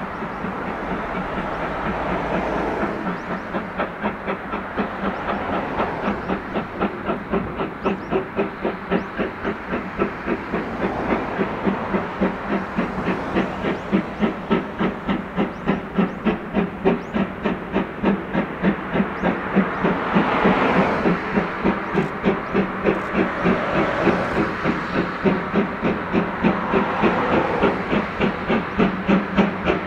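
Japanese National Railways Class C11 steam tank locomotive No. 325 working toward the listener, its exhaust beating in a fast, even rhythm that grows louder as it approaches, with hissing steam. A couple of brief surges of hiss come in the second half.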